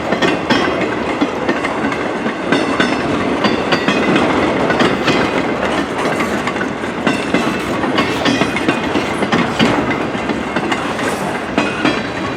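Freight train cars rolling past, steel wheels clicking and clacking irregularly over rail joints above a steady rolling noise.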